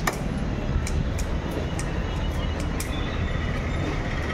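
A heavy knife chops once into fish on a wooden block at the very start, followed by a few light ticks, over a steady low rumble of background noise.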